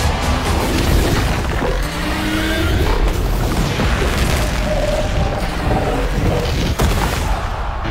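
Dense film-trailer battle sound mix: deep booms and explosions over music, with a sharp hit near the end.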